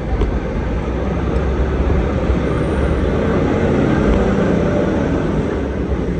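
City street traffic noise: a steady low rumble of vehicles that grows a little louder in the middle and eases near the end.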